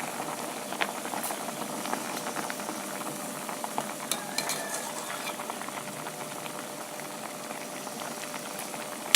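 Clear vegetable soup with luffa boiling steadily in a pot, with a few light clinks of a spoon against the pot about a second in and again around four seconds in, as the foam is skimmed off the top.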